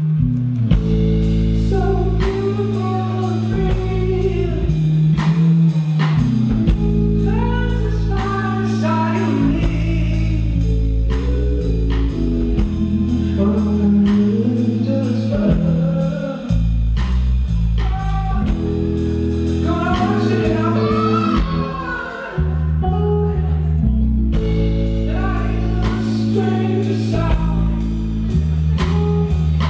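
Live rock band playing loud: electric guitars and a drum kit keeping a steady beat, with singing over them. The drums and cymbals drop out for about two seconds about three-quarters of the way through.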